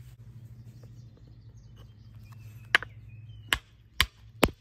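A 4-pound hammer strikes a chisel held on a stone four times in the second half, scoring a cut line across the stone. Underneath are faint bird chirps and a low steady hum.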